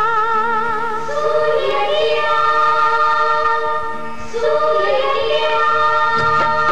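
Film song introduction: a woman's wordless singing in long held notes with a wavering vibrato, over sustained melodic accompaniment. Percussion strikes come in near the end.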